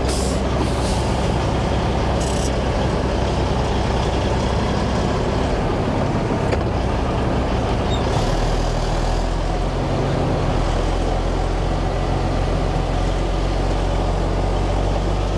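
Heavy diesel truck engine running steadily, its low note shifting and growing stronger about eight seconds in. A few brief air hisses come near the start.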